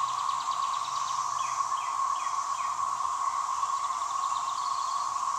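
A dense chorus of cicadas: a loud, steady, unbroken drone on one pitch. A bird gives four quick descending chirps about halfway through.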